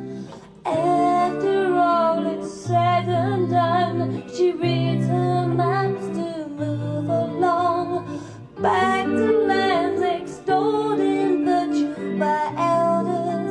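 A woman singing a song over sustained backing chords, her voice in phrases with short breaks between them.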